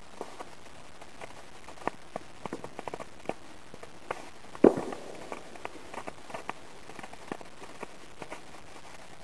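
Chain of small ground fireworks burning: sparks sputtering with irregular small pops and crackles, and one louder pop about halfway through.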